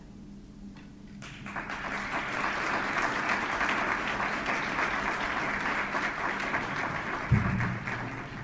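Audience applauding, the clapping starting about a second in, holding steady and tapering off near the end. A single low thump is heard just past seven seconds.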